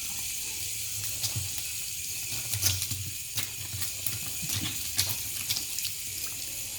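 Tap water running in a steady hiss, with scattered splashes and clicks as a hen's head is washed and rubbed under it.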